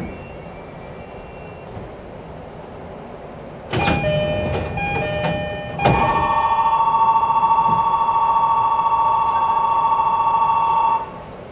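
E531 series commuter train doors at a station stop: a sudden clatter about four seconds in with short chime tones, then a loud, steady two-tone warbling electronic signal for about five seconds that cuts off abruptly.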